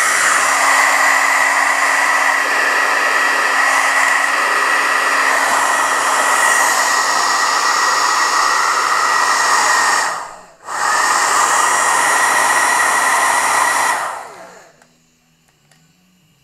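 Handheld hair dryer running steadily: a rush of air with a high whine over it. It cuts out for a moment about ten seconds in and comes straight back. About two seconds before the end it stops, fading out over about a second.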